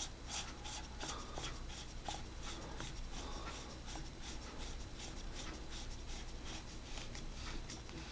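Imalent MS12 flashlight's battery pack being screwed back onto its head: a faint run of scratchy ticks and rubbing from the greased threads as it is turned by hand.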